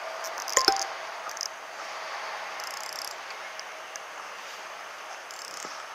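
Insects buzzing in short high bursts, four times, over a steady background hiss. A sharp click with a brief ring comes about half a second in.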